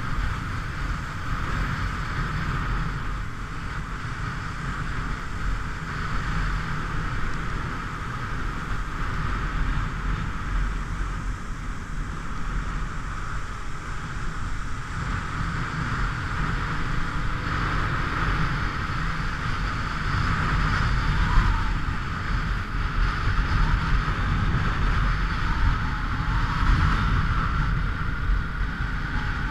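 Motorcycle on the move at road speed: steady wind rush over the microphone mixed with engine and road noise.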